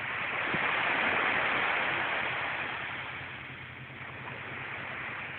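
Sea surf: a wave breaking and washing up the shore, a rush that swells, then fades over a few seconds.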